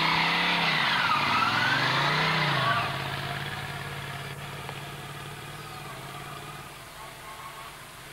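A motorcycle engine pulling away, its pitch dipping and rising over the first few seconds. It then runs at a steady pitch and fades as the bike rides off.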